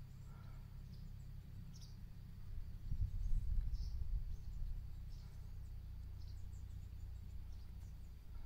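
Outdoor ambience: wind rumbling on the microphone, swelling in a gust about three seconds in, with scattered faint high bird chirps.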